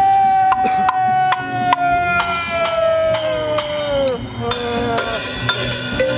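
Drums, cymbals and buckets struck with sticks in scattered hits, under a long held shout from one of the drummers that slowly falls in pitch over about four seconds, followed by a shorter, lower call.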